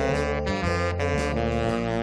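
Saxophone playing a slow blues, holding notes and moving to a new one every half second or so, with a low sustained bass part underneath.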